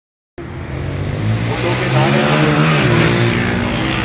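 A motor vehicle engine running. Its pitch holds steady, then falls about three seconds in.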